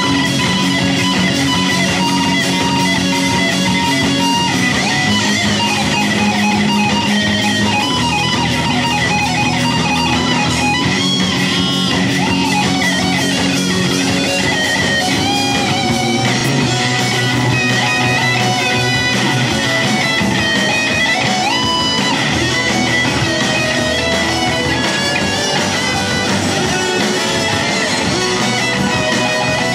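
Rock band playing live: distorted electric guitars, bass guitar and drums, with a lead guitar line of held and bent notes over the band.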